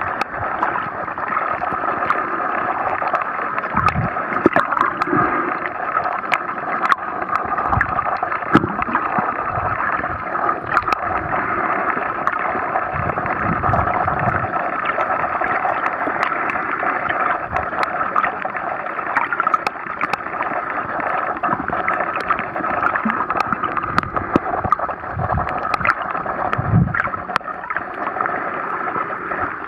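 Underwater water noise heard through a camera's waterproof housing: a steady muffled rushing, with scattered sharp clicks and a few brief low thumps.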